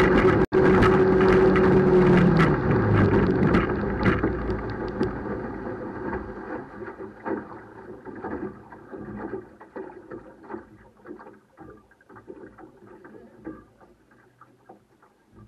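35 hp tiller outboard motor running at speed, then dying about two seconds in, its pitch sagging as it winds down: water still left in the motor after it was submerged. What follows is water splashing and lapping against the aluminum hull as the boat coasts, fading away.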